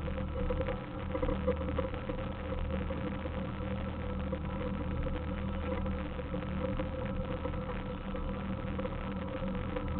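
Suzuki Samurai's four-cylinder engine running steadily at low speed as it crawls up a rocky trail, with small knocks and rattles over the rough ground.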